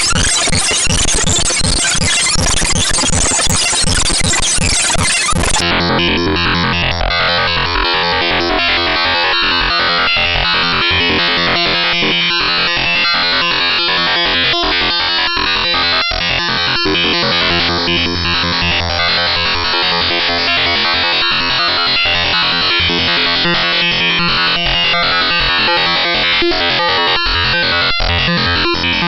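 Harsh computer-generated synthesized sound from a homemade program: a noisy, glitchy texture full of quick rising sweeps that switches abruptly about five and a half seconds in to a buzzy, repeating electronic pattern.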